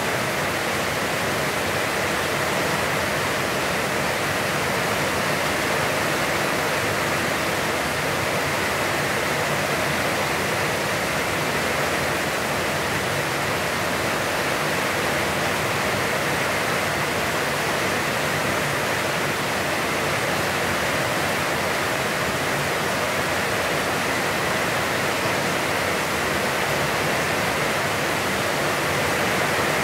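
Heavy, constant rain falling, an even steady hiss with no breaks.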